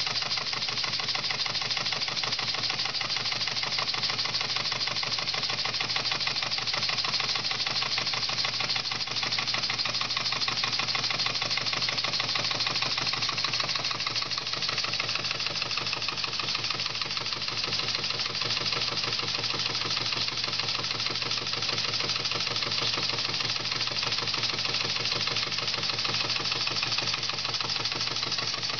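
Model live-steam engine running steadily under load, driving a small generator that lights a bulb. It makes a fast, even chuffing beat from the cylinder exhaust, over a steady hum.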